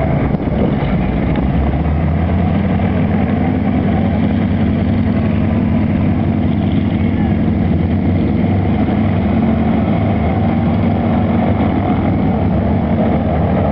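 Propeller planes' piston engines running steadily on the ground with a low, even drone.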